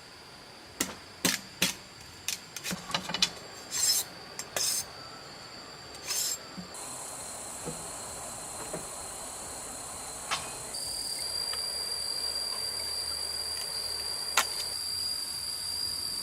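Scraping and knocking on wood, with a quick run of sharp strokes and short scrapes in the first few seconds, over a steady high-pitched drone. A steady hiss comes in about halfway through and grows louder.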